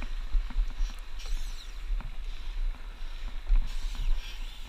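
Water slapping against the hull of a small open boat on the sea, over an uneven low rumble, with scattered knocks and clicks.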